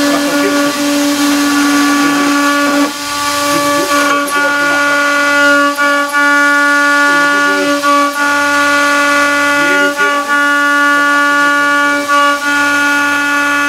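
CNC milling spindle with a 6 mm single-flute cutter cutting 8 mm aluminium plate: a steady high whine with several tones over a hiss of compressed-air and spirit mist coolant. The level dips briefly every second or two.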